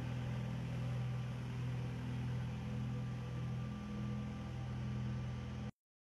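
Engine of a road-spraying tanker truck running with a steady low hum, a light hiss above it; the sound cuts off abruptly near the end.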